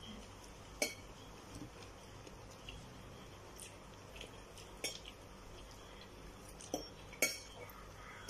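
Metal forks and spoons clinking against a ceramic plate while spaghetti is eaten from it: a few scattered sharp clinks, the loudest about seven seconds in.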